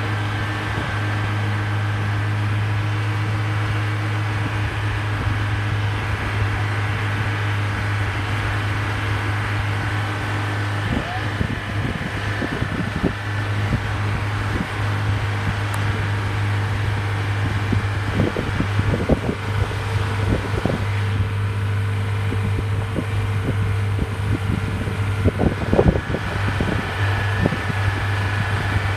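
Vehicle driving, heard from inside the cabin: a steady low engine and road drone, with a few brief louder stretches along the way.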